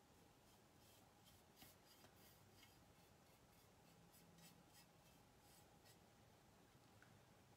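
Near silence, with faint, irregular soft scratches of a small paintbrush stroking acrylic paint onto a ceramic truck.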